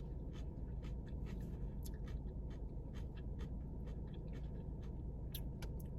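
Faint scattered clicks and light scratching over a steady low background hum, from takeout food packaging and a drink cup being handled.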